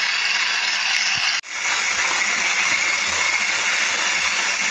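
Electric hand mixer running steadily, beating cake batter of eggs and sugar; the sound cuts out for an instant about a second and a half in, then carries on.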